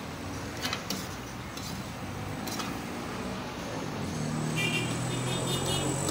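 Meat curry simmering and sizzling in a steel karahi wok, with a metal ladle knocking against the wok a few times, over a steady low hum of vehicle traffic.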